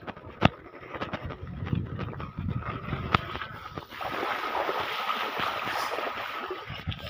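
Mountain bike rolling over gravel with scattered clicks and rattles, then from about four seconds in a steady hiss as the tyres cut through rainwater puddles and throw up spray.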